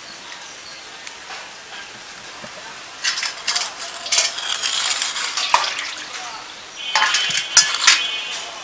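Raw beef being washed by hand in a metal bowl of water: splashing and sloshing from about three seconds in, with clinks of the meat and hand against the metal bowls and a brief metallic ring near the end.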